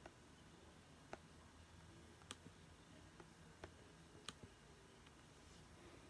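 A few sparse computer mouse clicks, about five short sharp ticks spread over several seconds, over a faint room hum.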